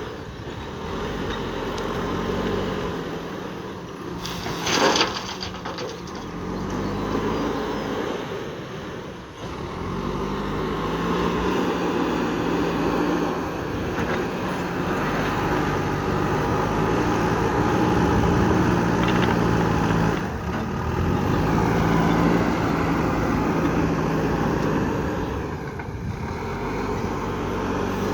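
JCB 3DX backhoe loader's diesel engine working, its pitch rising and falling repeatedly as the machine loads gravel. A short sharp knock about five seconds in.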